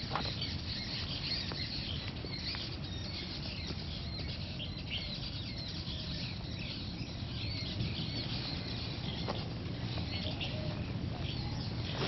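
Several birds chirping and calling, many short high chirps overlapping throughout, over a steady low rumble.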